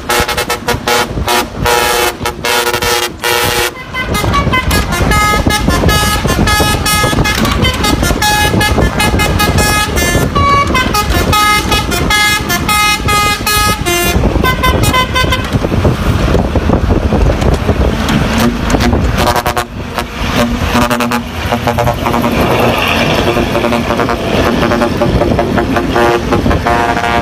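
Electronic dance music for the first few seconds, then a truck's basuri, a multi-tone musical air horn, playing a tune of short stepped notes for about ten seconds. After that the truck's engine and road noise take over, with more horn tones near the end.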